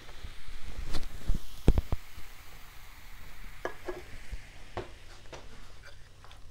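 Close-miked eating noises on a clip-on microphone: noodles slurped and chewed, with rustling and a few heavy thumps about a second or two in, then scattered clicks.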